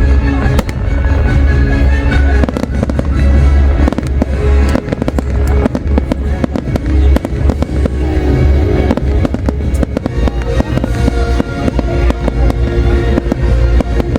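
A fireworks display firing rapid, dense bangs one after another with no pause, over loud music with sustained tones.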